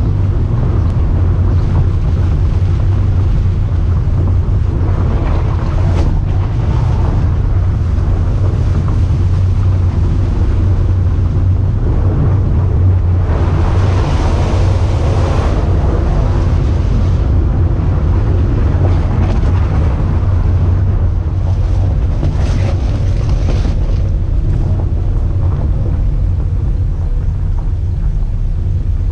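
Vehicle driving along a stony gravel track, heard from a camera mounted on it: a steady low rumble of engine and road noise, with a louder, brighter stretch of gravel noise about halfway through and again briefly later.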